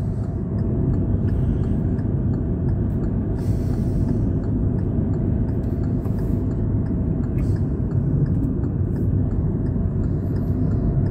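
Steady low rumble of road and engine noise inside a moving car's cabin at highway speed, with faint, regular ticking from the turn indicator.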